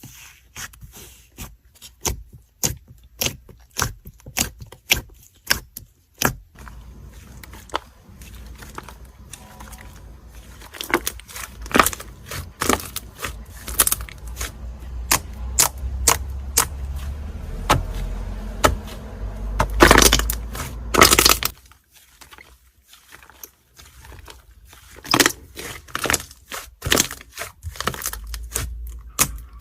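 Slime mixed with add-ins being squished and kneaded by hand, giving a stream of sticky crackling and popping clicks. The clicks crowd together and grow louder through the middle, stop briefly a few seconds before the end, then start again.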